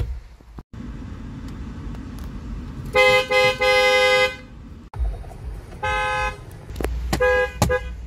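Car horns pressed from inside the cabin: a Porsche's horn sounds three times, the last blast longest, about three seconds in, followed by shorter honks from other cars near the end.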